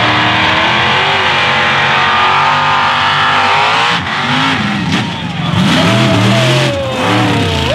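Mud truck's engine revving hard as it runs through a rutted dirt pit. It holds high revs at first, then rises and falls several times with the throttle from about five seconds in.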